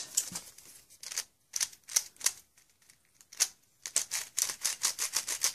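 Hard plastic clicks and clacks from a Dayan Megaminx being handled and its faces turned: a few scattered clicks at first, then a quicker run of clicks in the last second and a half.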